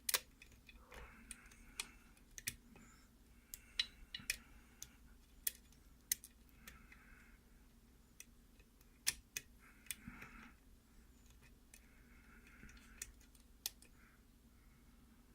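Hook pick working the pins of a Russwin mortise cylinder under a tension wrench: faint, irregular light metal clicks with short scraping sounds of the pick moving in the keyway.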